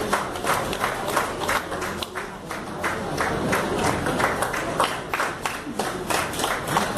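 Audience clapping: sharp, distinct claps at a steady pace of about three a second.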